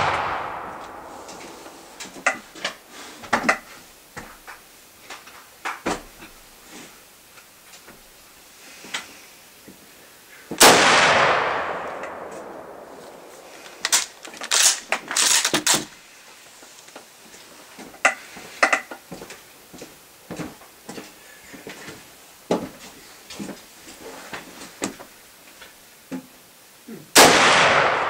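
Two shots from a 1934 Tula Mosin-Nagant M91/30 bolt-action rifle firing 7.62x54R surplus ammunition, about ten seconds in and near the end, each with an echo that fades over a few seconds; it opens on the fading echo of a shot just before. Between the shots come clusters of sharp metallic clicks and clinks as the bolt is worked.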